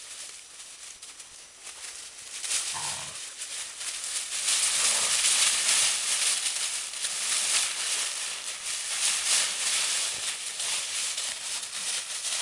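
Entlebucher mountain dogs running and scuffling through a thick layer of dry fallen leaves: a crackling rustle that grows louder about two seconds in as they come close, then goes on unevenly while they tussle.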